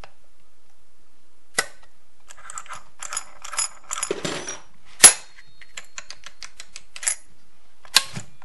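Small metallic clicks and rattles of a retaining ring being fitted with pliers on the crankshaft end of a Stihl MS 250-series chainsaw, over the clutch drum and sprocket, with one sharp metallic snap about five seconds in. Near the end the clutch drum is turned by hand, with another click.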